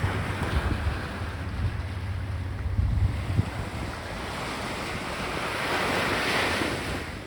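Sea waves washing onto a beach, with wind buffeting the microphone. A wave's hiss swells up and dies away about six seconds in.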